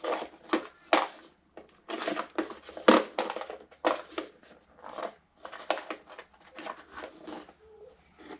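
Irregular rustling and crinkling from handling and rummaging through parts and packaging while searching for the right screws.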